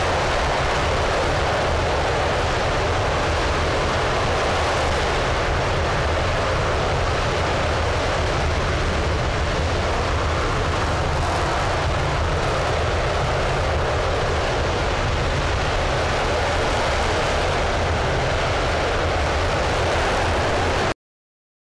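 RS-25 liquid-hydrogen rocket engine firing steadily in a ground test: a loud, even rush of noise over a heavy low rumble, unchanging until it cuts off suddenly near the end.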